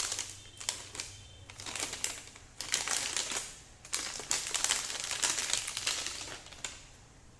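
Packaging around a hard disk crinkling and rustling as it is unwrapped by hand, in irregular bursts that die down near the end.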